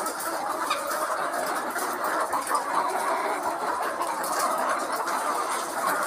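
A large flock of caged chickens clucking and calling all at once, a steady dense din with no pauses.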